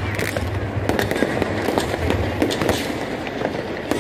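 Fireworks going off overhead: a rapid, uneven run of sharp cracks and pops, several a second, over a low rumble that fades in the first second.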